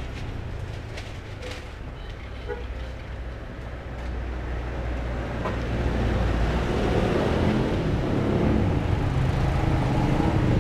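Motor scooter engine running close by over light street traffic, growing louder about halfway through.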